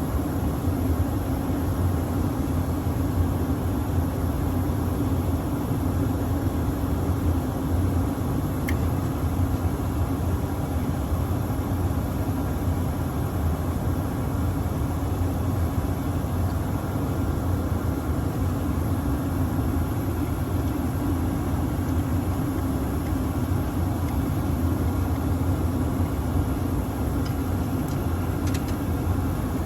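A 5-ton gas-electric package HVAC unit running steadily in heating mode, giving off a constant low mechanical hum.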